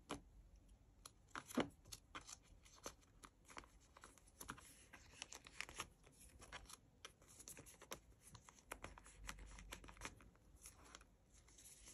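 Photocards being slid into clear plastic binder sleeve pockets: faint crinkling and rubbing of the plastic, with many small irregular clicks and scratches.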